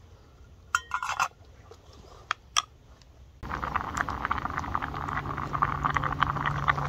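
A utensil clinks against a metal camping mug a few times, then about three and a half seconds in a dense, fizzing crackle starts suddenly and carries on: noodles simmering in the mug over a stove, the water not yet cooked off.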